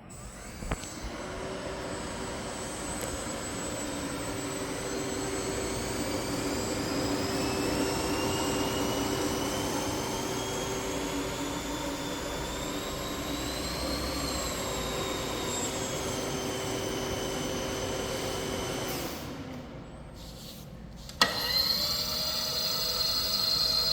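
Kent USA KTM-3VKF knee mill running with a steady mechanical whine whose pitch rises slowly and then falls. It winds down and stops, then a click about three seconds later and it starts again, its whine climbing quickly as it spins up.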